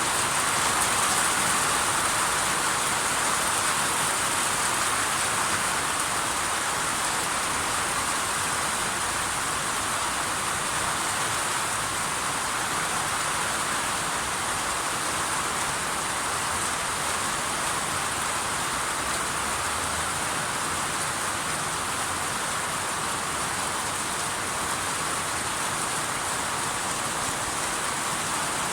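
Steady rain falling, an even unbroken hiss of drops with no distinct thunder or strikes standing out.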